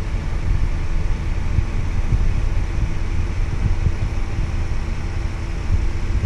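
Farm tractor's engine running steadily under way, heard from inside the cab as a continuous low rumble with a faint steady hum over it.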